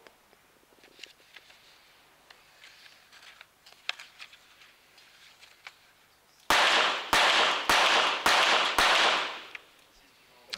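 A quiet wait, then five rapid shots from a .22 Short rapid-fire target pistol about six and a half seconds in, roughly half a second apart. It is one full rapid-fire series, and each shot rings with echo in the indoor range hall.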